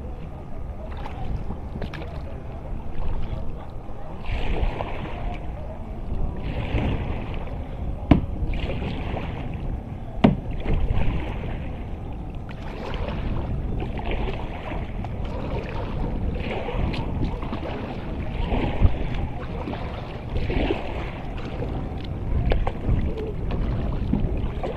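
Kayak paddle strokes, the blade dipping and splashing in the water about every two seconds. A few sharp knocks come in between the strokes.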